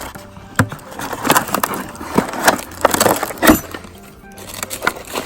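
Irregular wooden knocks, clatter and rustling from hands handling the door and its fittings, with music underneath.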